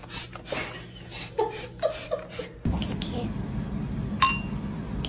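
Short, broken bursts of a speech-like voice with chuckling sounds, then a steady low hum comes in suddenly halfway through and a single sharp click sounds near the end.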